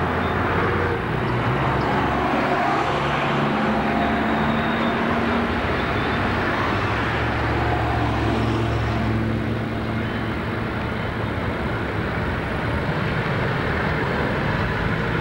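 Street traffic with double-decker bus diesel engines running: a steady low engine drone over the hiss of road noise, swelling now and then as a bus moves through.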